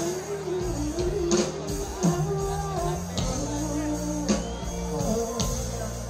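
A woman singing live into a microphone over a backing track with a steady bass line and beat.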